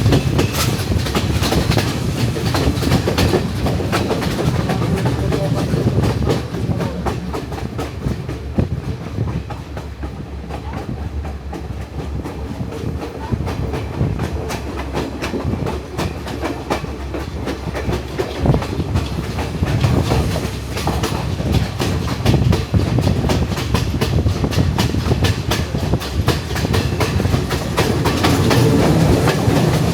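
Passenger train running on the Sri Lankan hill-country line: a steady low rumble with rapid, irregular clickety-clack of the wheels over the rail joints. It is a little quieter in the middle and louder again near the end.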